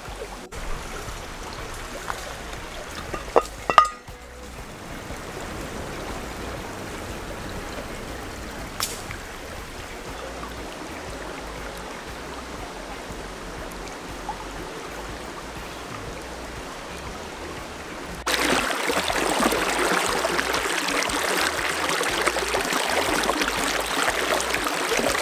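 Shallow stream flowing over rocks, a steady rush of water that gets clearly louder about eighteen seconds in. There are a few sharp knocks about three to four seconds in.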